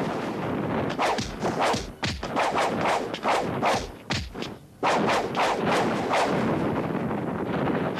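Dubbed martial-arts film fight sound effects: a rapid run of whooshes and heavy thuds and blasts, one after another, with a brief lull a little after four seconds.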